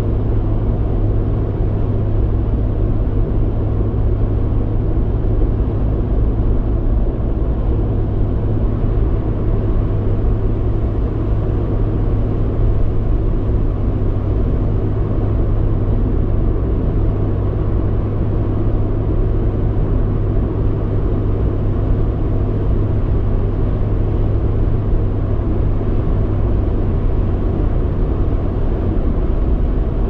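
A car driving on a motorway at steady speed: continuous road and tyre rumble with a steady low drone.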